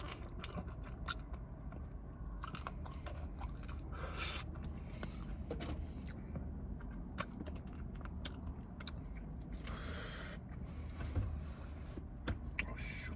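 A person chewing and biting into chicken wings close to the microphone: wet mouth sounds with many short clicks and a few louder crunches, the largest about four and ten seconds in.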